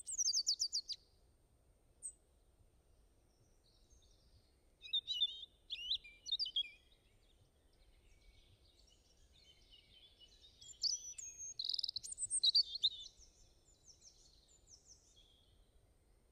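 Birds chirping and singing in several bursts of quick, high, sweeping notes, loudest just after the start, about five seconds in, and again from about ten to thirteen seconds in.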